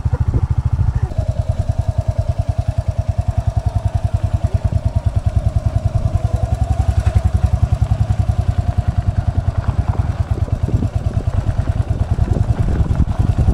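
Motorcycle engine running as the bike rides along, its exhaust beat a fast, even train of low pulses. A steady higher whine rides over it from about a second in until near the end.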